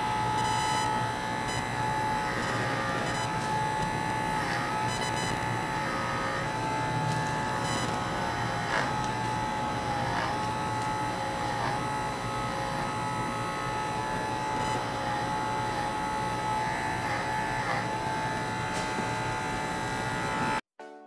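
Andis Supra ZR cordless hair clipper fitted with a DKC blade, running with a steady motor hum as it cuts hair. The hum dips briefly now and then under load, and it cuts off abruptly near the end.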